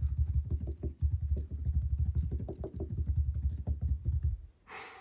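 Cat grooming itself, licking its leg in quick rasping strokes, several licks a second, close to the microphone. It stops about four and a half seconds in.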